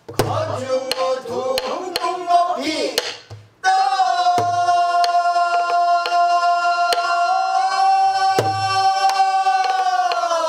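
Pansori singing to a buk barrel drum. The singing wavers through a phrase, breaks off about three and a half seconds in, then holds one long steady note. Under it the buk is struck with deep thumps and sharp stick clicks.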